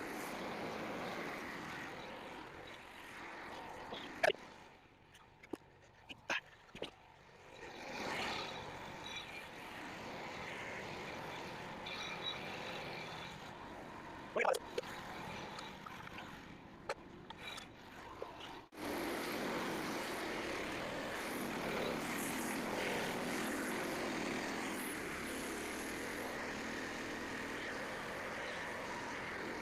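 Portable bandsaw sawmill running steadily, heard from some distance, with scattered knocks and clatters. About 19 seconds in the sound cuts abruptly to a steadier, louder run.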